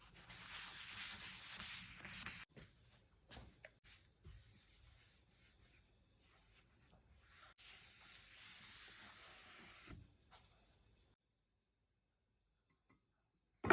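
Japanese ryoba pull saw cutting wood: faint rasping saw strokes in two stretches, with light knocks between them, stopping about two seconds before the end.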